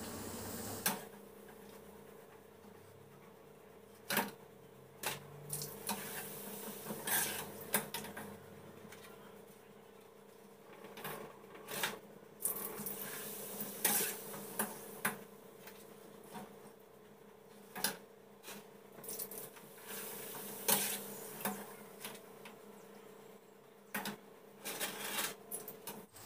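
Scattered clinks and knocks of kitchen utensils and pots, over a faint steady hum.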